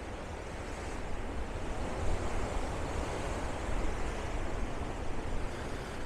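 Ocean surf breaking, a wash of noise that swells about a second in and eases off toward the end, with wind rumbling on the microphone.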